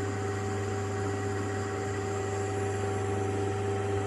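Steady mechanical hum with a low drone and a few fixed higher tones over an even hiss.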